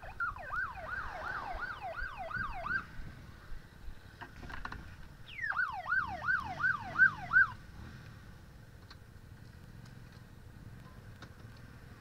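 Siren yelping in two short bursts, each a rapid run of falling wails about three a second; the second burst is louder.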